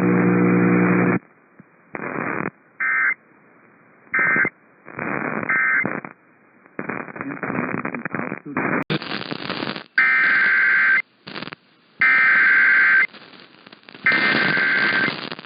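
Emergency Alert System SAME digital data tones over a weather radio feed. Three short warbling bursts with static between them, typical of the end-of-message code that closes an alert, then three longer bursts of about a second each, spaced a second apart: the header that opens the next alert.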